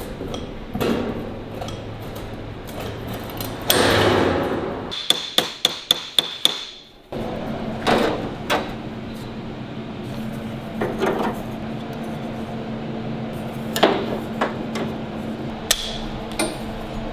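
Hammer striking thin sheet steel while a repair panel is shaped: a quick run of about six sharp, ringing metallic blows, with scrapes and knocks of the sheet being handled around them. A few single clicks follow, and near the end tin snips cut the steel.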